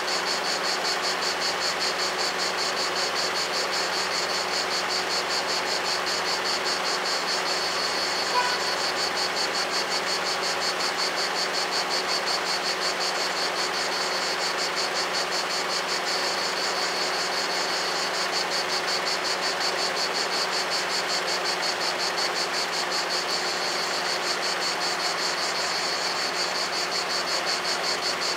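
Insects chirring steadily in a fast, even pulse, over a low engine hum. A single short peep sounds about eight seconds in.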